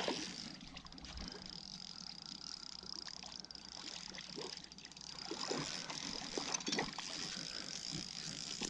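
Small waves lapping gently at the shoreline, with a few short splashes and clicks around the middle as a small Australian salmon is drawn through the shallows on a light spinning rod.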